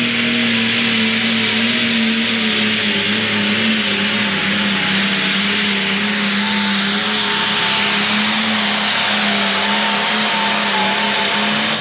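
Single-turbocharged diesel engine of a pro stock pulling tractor running flat out under full load as it drags the sled, a loud, steady drone holding nearly constant revs with a heavy hiss over it.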